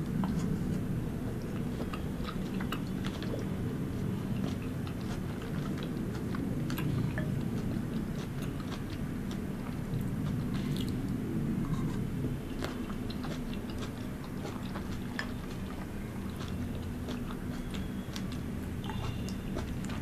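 Close-miked wet chewing and biting of spoonfuls of soft fruit (mango chunks and blueberries), with many small sharp mouth and spoon clicks throughout.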